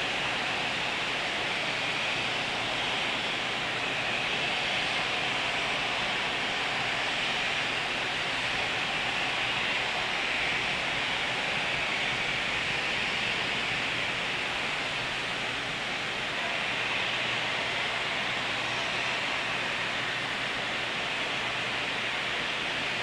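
Steady, even hiss with no distinct events, brightest in the upper range and thin in the bass.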